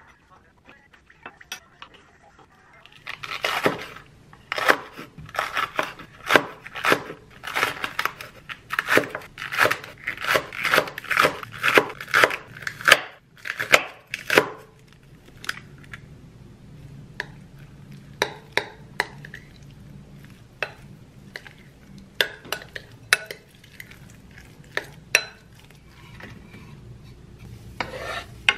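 Kitchen knife chopping green onions on a wooden cutting board: knocks about two a second for some ten seconds. Then scattered lighter clicks and knocks over a low steady hum.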